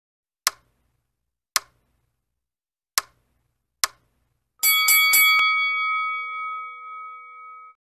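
Sound effects for a subscribe animation: four sharp clicks about a second apart, then a notification bell struck several times in quick succession and ringing on, fading over about three seconds before cutting off.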